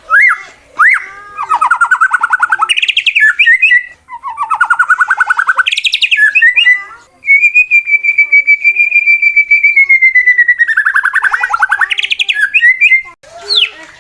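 Male white-rumped shama singing a challenge song meant to provoke rival males to fight: a few quick rising chirps, two fast rattling trills, then a long high whistled note of about three seconds that slides down into another rattling trill near the end.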